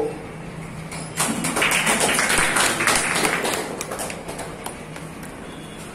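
A small audience clapping, starting about a second in and fading out after about three seconds.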